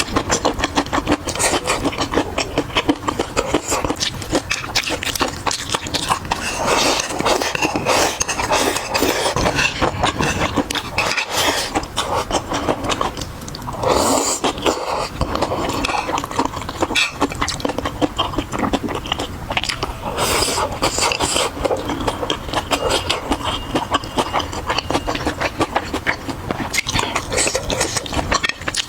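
Close-miked eating sounds: continuous chewing and biting with dense small wet clicks and crackles.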